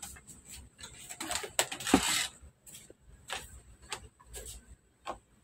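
Handling noise at a workbench: scattered light clicks and knocks, with a rustling stretch and the loudest knock about two seconds in, over a faint steady high whine.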